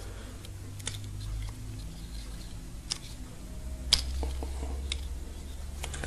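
Needle-nose pliers clicking and scraping against a plastic microwave fuse holder as a fuse is worked out of it. There are a few small sharp clicks, the loudest about four seconds in, over a low steady hum.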